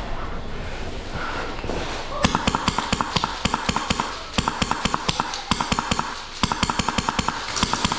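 Airsoft gun firing several rapid bursts of full-auto shots, about ten a second, starting about two seconds in.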